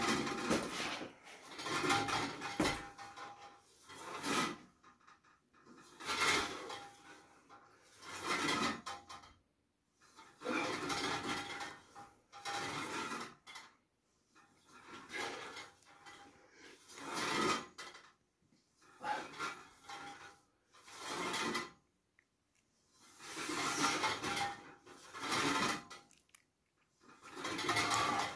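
Cable machine's steel cable running over its pulleys as the weight stack is pulled and let back, a rasping swell about every two seconds, one per rep of a rope pull to the forehead for the rear shoulders.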